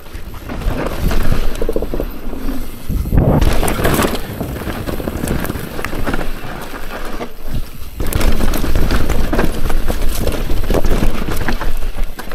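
Mountain bike descending a steep, loose, rocky trail, heard from a camera mounted on the rider: tyres rolling over dirt and rock, and the bike clattering over bumps. The noise dips briefly about seven seconds in, then picks up again louder.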